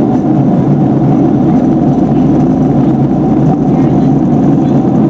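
Steady low cabin drone of a Boeing 757-300 airliner in cruise: engine and airflow noise heard from inside the cabin, even and unchanging.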